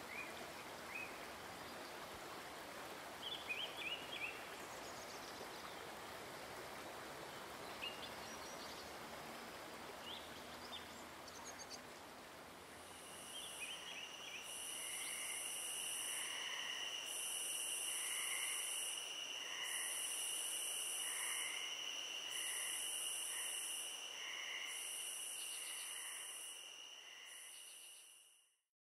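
Natural outdoor ambience: a steady background hiss with a few short bird chirps. About halfway through, a louder insect chorus takes over, a steady high-pitched trilling with a shrill buzz pulsing about once a second. It fades out just before the end.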